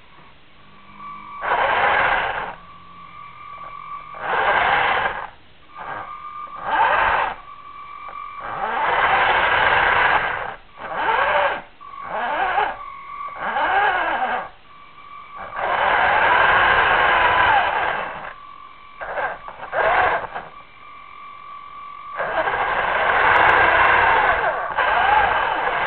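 A radio-controlled car's electric motor whines in a string of short bursts as the throttle is pushed and released, its pitch rising and falling with each run. A faint steady whine sounds between bursts. The sound is thin and lacks highs, as heard through the FPV camera's audio link.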